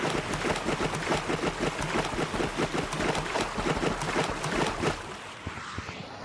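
Water rushing and splashing in quick irregular spatters, dropping noticeably quieter about five seconds in.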